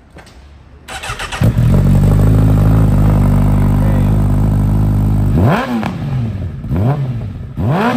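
Honda CBR1000 inline-four superbike with a Vandemon aftermarket exhaust starting up about a second and a half in and idling steadily. Near the end it is revved three times in quick blips, the pitch rising and falling with each one.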